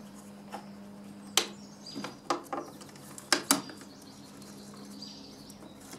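A handful of sharp clicks and taps as bare copper ground wires are bent and handled inside a plastic electrical box, over a steady low hum.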